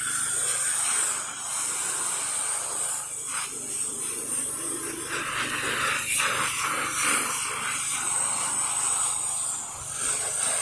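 Pressure washer spraying: a steady hiss of the water jet, with a constant low hum underneath.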